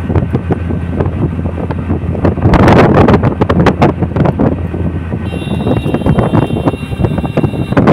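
Wind buffeting the microphone on a moving road vehicle, with gusty swells over the low steady hum of its engine. A faint high steady whine joins about five seconds in.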